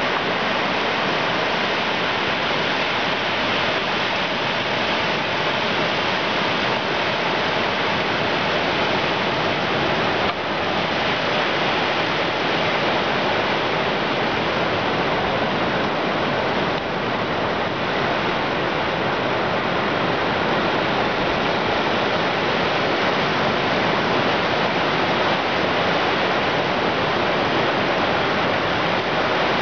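Ocean surf rushing steadily on the shore, a continuous even roar of water.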